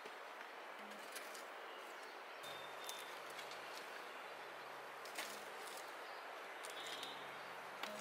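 Split firewood being set onto a burning campfire in a metal fire pit: a few scattered sharp wooden knocks and crackles. Birds chirp briefly, and a faint low hum comes in about two and a half seconds in.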